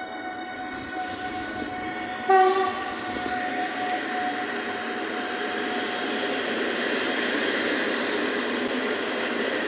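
Electric passenger trains moving through a station: a short, loud train horn blast about two seconds in, then the noise of a train rolling past close by, building up and holding steady.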